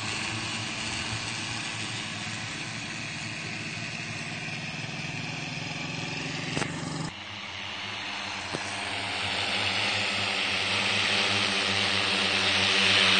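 Agricultural spraying drone's rotors humming steadily in flight. After a sudden break about seven seconds in, the hum grows louder as the drone comes closer.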